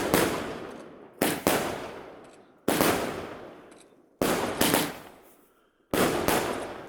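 Fireworks going off in a steady series of loud bangs, about one every one and a half seconds, each dying away over a second or so.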